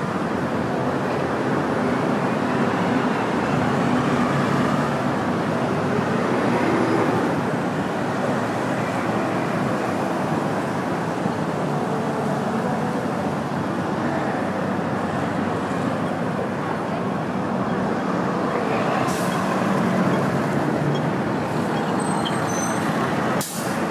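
Steady traffic noise of a busy city street, with buses and cars passing.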